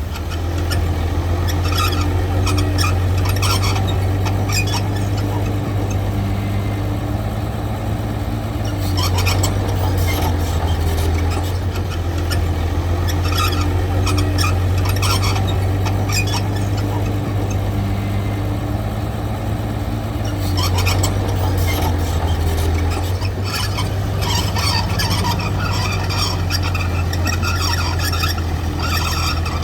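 Heavy earthmoving machine's diesel engine running steadily under load, with repeated high-pitched metallic squeaks and scrapes coming and going every second or so.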